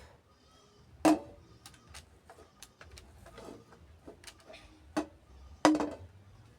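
A few sharp knocks and clinks: a loud one about a second in and two more near the end, with lighter ticks between.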